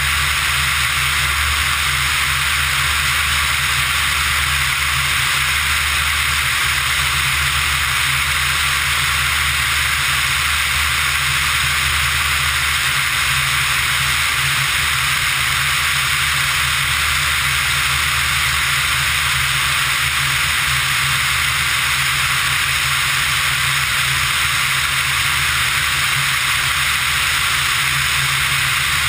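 Steady in-flight noise of a Pipistrel Virus ultralight, picked up by a camera mounted outside on its tail: a loud hiss of rushing air over a low, even drone from the engine and propeller.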